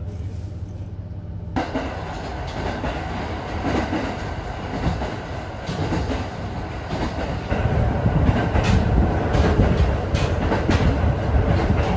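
Cabin noise inside a local diesel train: a steady low hum, then from about a second and a half in, louder running noise with irregular clicks of the wheels over the rail joints, growing louder in the second half.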